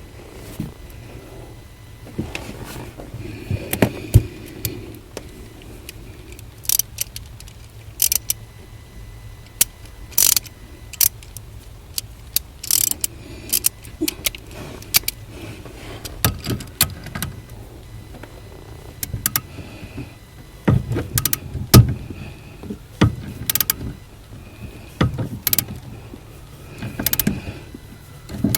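Irregular sharp metallic clicks and clunks, some single and some in quick clusters, over a low steady hum.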